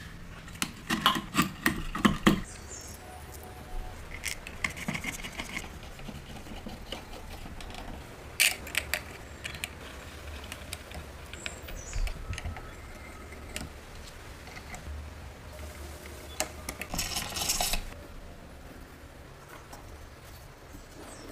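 Small metal parts clinking, clicking and rattling in scattered bursts as an old magneto with its gear is handled and fitted into a wooden box. The loudest cluster comes a second or two in, with a low steady hum underneath.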